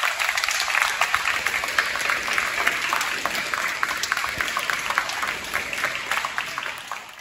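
Audience applauding: dense, fast clapping that thins out near the end.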